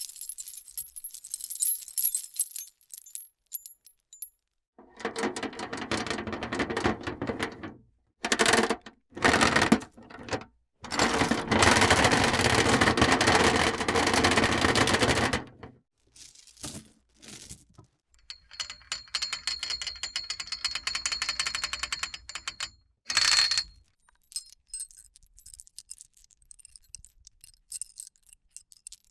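A run of separate mechanical sound effects one after another: bright metallic clinks at first, then several bursts of fast rattling clicks lasting from about one to five seconds each, with short silences between, and sparse ticking near the end.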